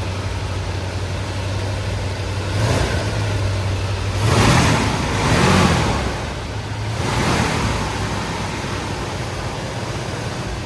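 Ford FE 360 V8 engine of a 1969 F350 pickup idling at about 900 rpm, with a few brief swells in noise about 3, 5 and 7 seconds in.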